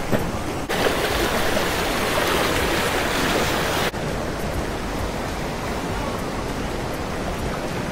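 Rushing creek water running over rapids, a steady noise. It is louder for the first few seconds, then drops suddenly to a lower level about four seconds in.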